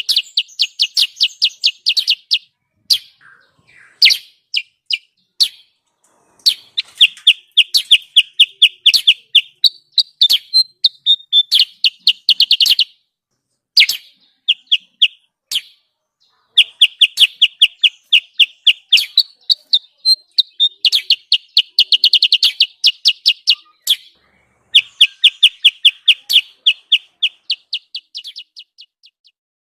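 Songbird lure recording: fast, loud trains of sharp repeated chip notes, about ten a second, in bursts of one to three seconds separated by short gaps, trailing off near the end.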